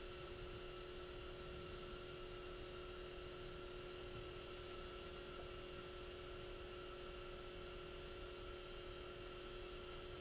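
Steady low hum with several fixed tones held throughout, over a faint rumble, as from an electrical device running; nothing else happens.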